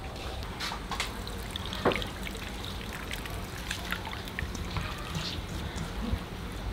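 Coconut milk trickling and dripping through a fine mesh sieve into a bowl, with scattered small clicks and one sharper one about two seconds in.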